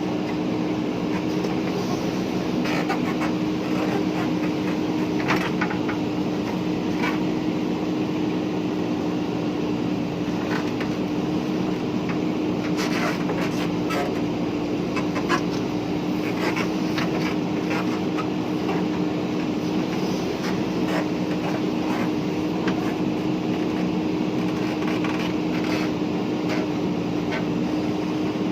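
Diesel engine of a JCB 3DX backhoe loader running steadily, with scattered short knocks and clanks over it.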